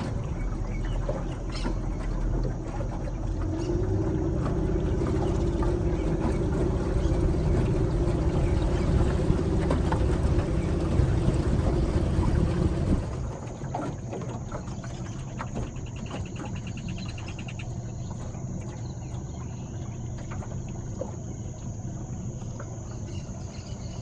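A boat motor runs steadily with water rushing past the hull, then cuts off abruptly about halfway through. After that, insects keep up a steady high-pitched buzz, with a short rapid trill a few seconds later.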